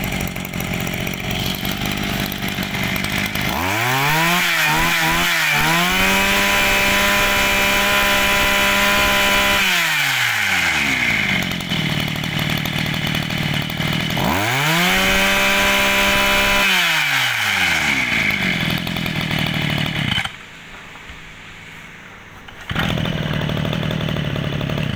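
Small two-stroke engine of a Mitsubishi brush cutter running. It idles and is revved up twice, each time rising to a high steady pitch and falling back to idle. It goes much quieter for about two seconds near the end.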